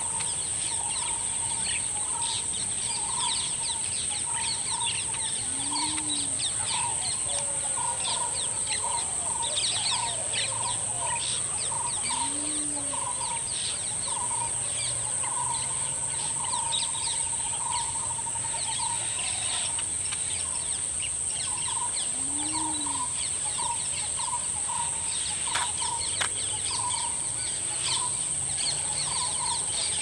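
Birds calling over a lake: a steady string of short notes at about two a second, many quick high chirps, and a low rising-and-falling note every six seconds or so. All of it sits over a steady high-pitched buzz.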